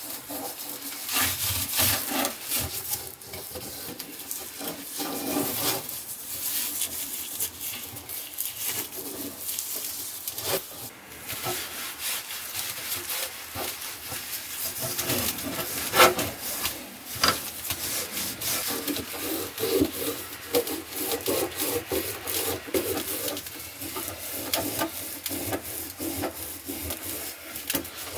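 Gloved hands and a cloth rubbing shortening over a cast iron corn stick pan to season it: irregular wiping and scrubbing strokes, with a sharp click about sixteen seconds in.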